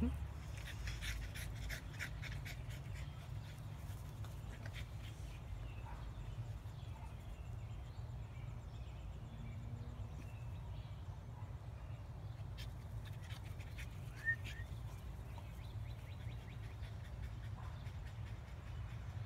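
Puppies heard faintly, with soft dog panting and light rustling over a steady low rumble. A short high chirp comes about fourteen seconds in.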